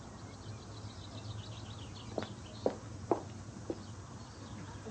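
Faint birds twittering, then four sharp knocks about half a second apart, like footsteps or hooves on a hard surface, over a low steady hum.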